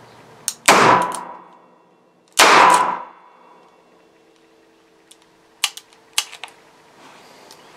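Two revolver shots about a second and a half apart, each with a ringing tail, fired with a special revolver load that broke part of the cylinder and jammed the gun within these two shots. A few light clicks follow later.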